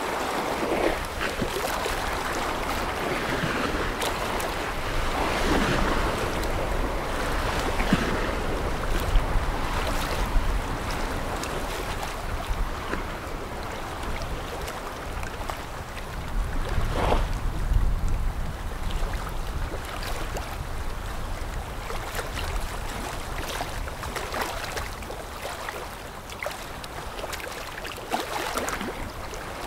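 Rushing, splashing water from a passing container ship's bow wave and wash, with wind gusting on the microphone as a low rumble.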